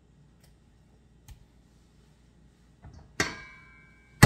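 Rubber mallet striking the spine of a meat cleaver to drive it through a chicken piece and its bone on a wooden cutting board: a light tap, then one sharp hit about three seconds in with a brief metallic ring from the blade, and a second hit right at the end.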